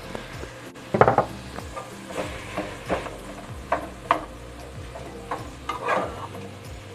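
Black plastic slotted spatula scraping and knocking against a nonstick frying pan in irregular strokes as raw ground beef is broken up among softened onions, with light sizzling underneath.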